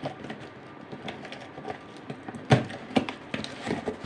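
Cardboard shipping box being pulled open by hand: irregular rustles, scrapes and knocks of the card flaps, with a sharp loud crack about two and a half seconds in and another about half a second later.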